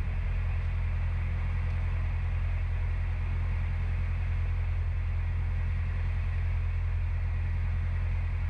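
Narrowboat's diesel engine running steadily at cruising speed, a low, even hum.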